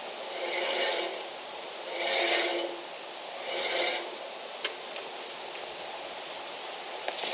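Three rubbing, scraping strokes about a second and a half apart, each with a faint squeak in it, then a couple of light clicks: hand work on a band sawmill while its new blade is being fitted.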